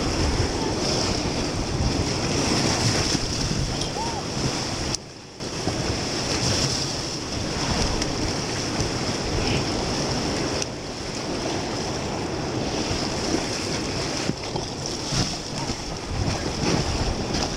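Rushing, crashing whitewater of the Potomac River's rapids at flood-stage high water, heard from inside a raft, with wind buffeting the microphone. The sound drops out briefly about five seconds in.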